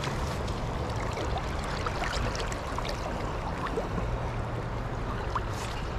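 Steady rush of a shallow stream riffle flowing past, with small scattered splashes and droplet ticks.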